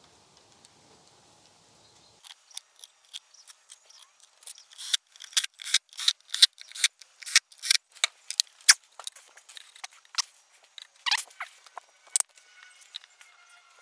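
Irregular sharp clicks, several a second, starting about two seconds in, as the subwoofer's amplifier plate is being fastened back into the cabinet.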